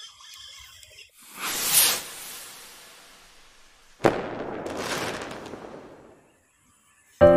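Logo-intro sound effects: a noisy whoosh swells up and fades, then about four seconds in a sudden hit with a long noisy tail dies away over about two seconds. Music starts right at the end.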